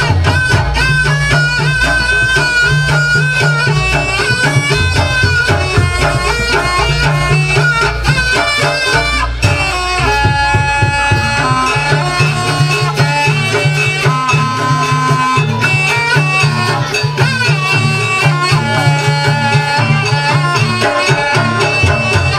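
Traditional Banyuwangi dance-accompaniment music: a reedy, shawm-like wind instrument plays a wavering, held melody over fast, continuous drumming with deep low tones underneath.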